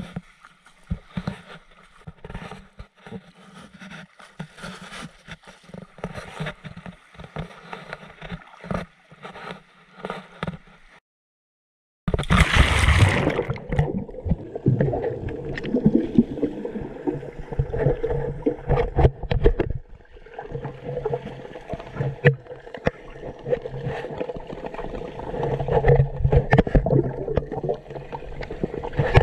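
Small waves washing over a pebble shore in shallow water, with many light clicks. About eleven seconds in the sound cuts out for a second, then a loud splash of going under gives way to muffled underwater rushing and gurgling.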